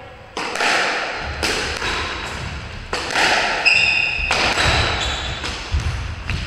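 Squash rally: the ball cracks off rackets and the court walls about every second or so, each hit ringing in the enclosed court. Short high squeaks of sneakers on the wooden floor come in the middle, along with low footfall thuds.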